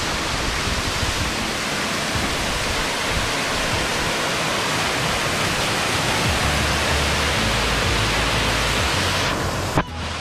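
Waterfall cascading down stepped rock ledges close by: a steady, loud rush of falling water. A brief click and dip in level near the end.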